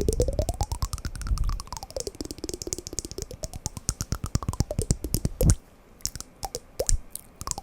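Wooden blocks clicking in a rapid, dense rattle, with a tone sliding slowly up and down beneath it. About two-thirds of the way through the rattle stops and a few separate wooden knocks follow.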